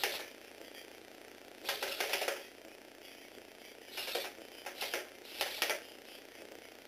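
Lego Technic walking robot dog clattering as it walks, its plastic gears and legs rattling against the tabletop in short bursts: one about two seconds in, then three quicker ones between four and six seconds.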